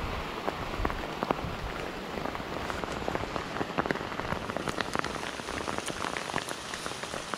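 Steady heavy rain falling during a storm, with many sharp drop taps close by.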